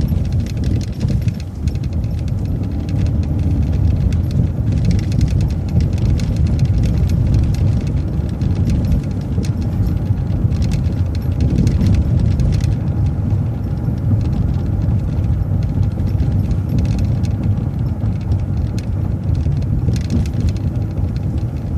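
MCO ViewMaster transit bus running, heard from inside: a steady low engine and road rumble.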